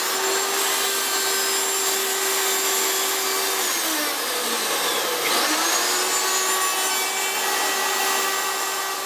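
Electric wood router running on a wheeled carriage along a metal form, cutting a bamboo strip for a fly rod: a steady high motor whine over the noise of the cut. It winds down about three and a half seconds in, spins up again about five seconds in, and winds down once more at the end.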